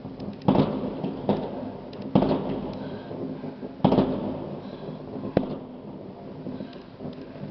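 Aerial fireworks exploding: about five sharp bangs a second or so apart, each trailing off in a rumbling echo, with smaller crackles between. The loudest bang comes about four seconds in.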